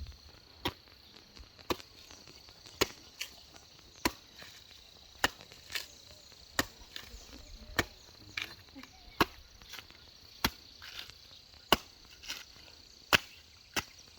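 A blade chopping a young green coconut (madafu) open: sharp chopping strikes about once a second, some coming in quick pairs. A steady high insect trill runs beneath.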